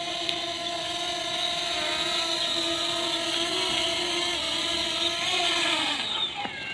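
Fimi X8 Mini quadcopter's motors and propellers running with a steady whine, the pitch dropping about six seconds in as the motors slow.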